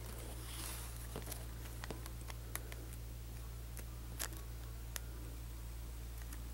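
Faint hand-handling sounds of splicing a VHS tape: a few scattered light clicks and crinkles as fingers work the loose magnetic tape and a strip of clear scotch tape. A steady low hum lies under it.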